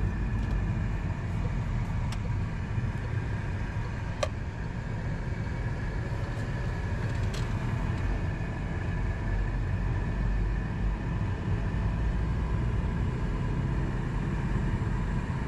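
Car driving, heard from inside the cabin: a steady low engine and road rumble with a few faint clicks.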